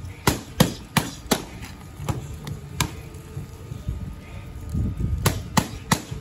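Boxing gloves smacking focus mitts in sharp slaps. A quick combination of four punches comes first, then a single punch, then three more punches near the end.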